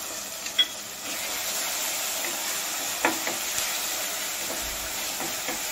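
Masala paste and onions frying in hot oil in a steel kadhai: a steady sizzling hiss, with a sharp click about half a second in and a short knock near the middle.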